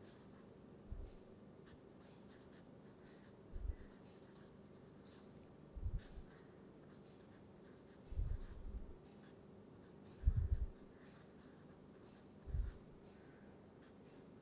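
Felt-tip marker writing on paper in short strokes, with six soft low thumps, about two seconds apart.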